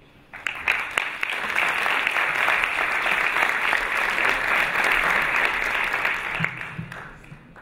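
Audience applauding. The clapping starts about half a second in and dies away near the end.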